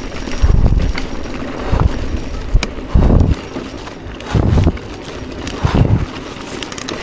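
Mountain bike rolling down a rough, overgrown dry-grass singletrack, with a low thump about every second and a half over the steady noise of tyres and brush.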